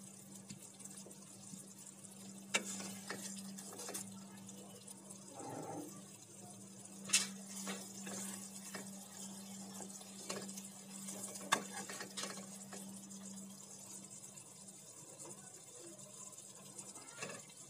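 Serving spoon scraping and clinking against a nonstick wok and a ceramic plate as thick prawn curry is spooned out. The spoon gives a few sharp clinks, the loudest about seven and eleven seconds in, over a low steady hum.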